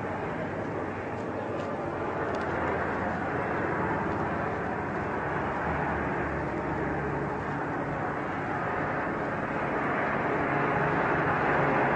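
Mi-24 helicopter's twin turboshaft engines and main rotor running: a steady rushing noise with a low engine hum, growing slowly louder toward the end.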